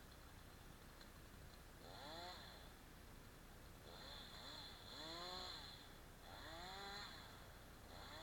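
Chainsaw, faint, blipped up briefly about four times, each rev rising and falling in pitch.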